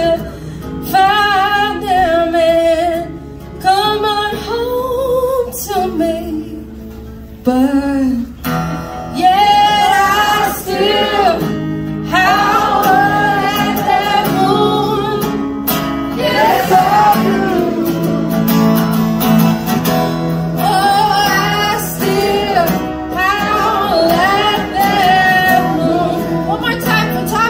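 A woman singing live to her own acoustic guitar: sung phrases a few seconds long with sliding, wavering pitch, broken by short breaths, over steadily played chords.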